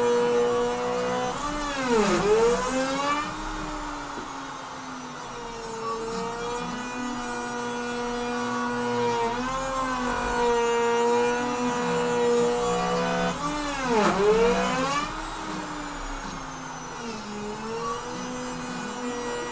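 Bauer router spindle on a CNC machine cutting into a wooden board, a steady high motor whine. Its pitch dips sharply and recovers about two seconds in and again about fourteen seconds in, with smaller dips in between.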